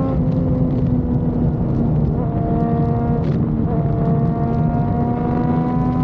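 Motorcycle engine running steadily while riding, with wind and road rumble. The engine note shifts slightly about two seconds in, then climbs slowly.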